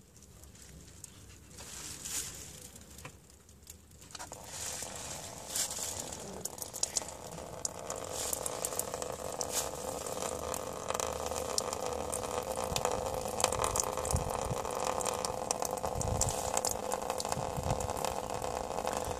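Engine coolant running out of the radiator's opened drain plug in a steady stream. The flow starts about four seconds in and grows a little louder before holding steady.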